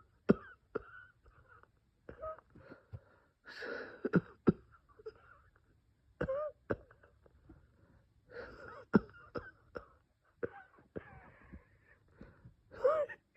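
A person coughing in a series of short, sharp coughs at irregular intervals, with wheezing, wavering whistle-like tones in the breaths between: the chest wheeze of a bronchospasm.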